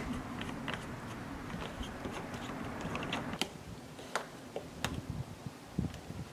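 Scattered small clicks and taps of plastic and metal plumbing fittings being handled at a plastic drum, with a few sharper ticks about three to five seconds in.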